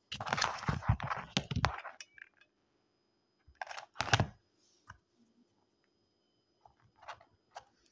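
Clicks, knocks and rustling of hands handling wine corks and a hot glue gun on a plastic cutting mat, busiest in the first two seconds, with one sharper knock about four seconds in and a few faint clicks after.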